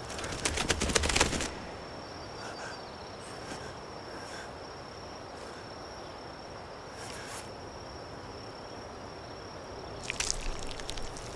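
A steady, thin high-pitched whine over faint outdoor night ambience. Bursts of crackling come at the start and again near the end.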